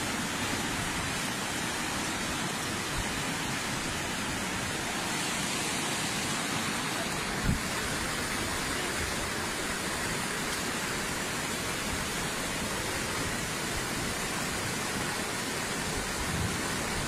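Steady rushing of river water, an even noise with no rhythm, and one brief knock about seven and a half seconds in.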